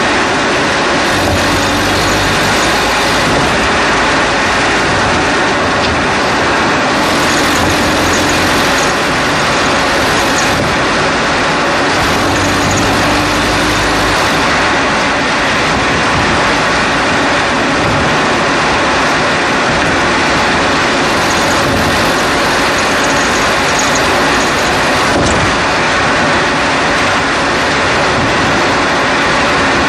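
Road and tyre noise of a 2011 Chevrolet Cruze on the move, heard from a camera strapped to its front right strut, with a low hum that comes and goes a few times and a single faint tick near the end.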